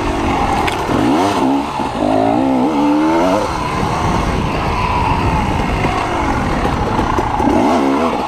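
Dirt bike engine running hard, its revs rising and falling over and over as the throttle is worked, with a burst of quick rev swings from about a second in and again near the end.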